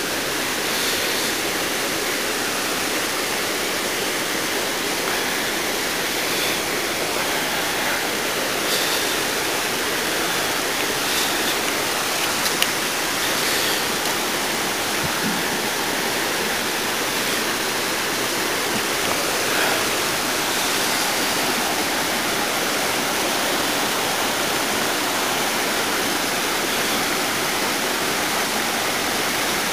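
A waterfall pouring over rocks into a pool: a steady rush of falling water.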